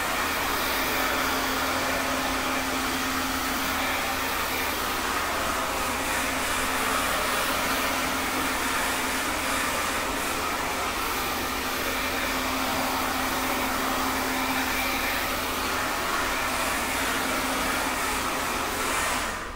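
Handheld hair dryer running steadily: a rush of air over a steady hum. It is switched off right at the end.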